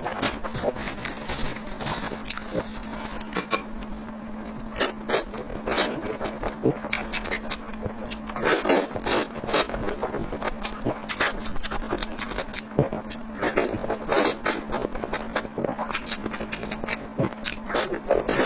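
Close-miked eating sounds: irregular wet chewing, mouth smacks and crackles, with a faint steady hum underneath.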